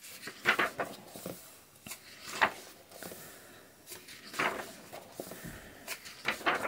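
Paper rustling as the pages of a softcover workbook are turned and pressed flat by hand, in about five short rustles.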